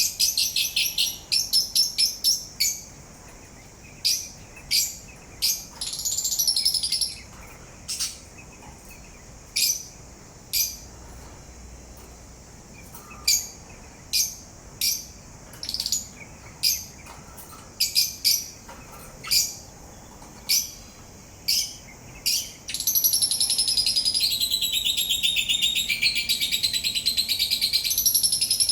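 Pet parrot giving short, high chirps, singly and in quick runs, then breaking into a continuous high warbling song about twenty-three seconds in.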